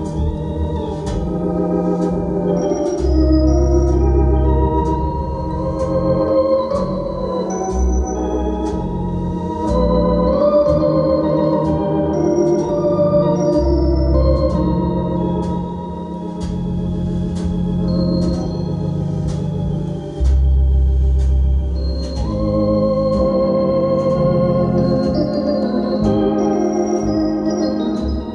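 Instrumental music played back through Monitor Audio Platinum PL300 II floor-standing loudspeakers: held melody notes over deep bass notes and light ticking percussion.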